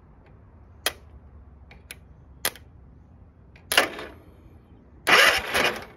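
Sharp clicks as a screwdriver taps and sparks across a riding mower's electric starter terminal, followed by two short bursts of the starter motor engaging when fed 12 volts directly, the second lasting almost a second: the starter itself works, pointing to a failing starter solenoid.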